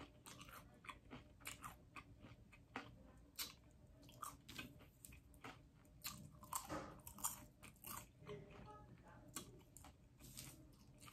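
A person crunching and chewing mouthfuls of caramel corn and cheese popcorn: quiet, irregular crisp crunches throughout.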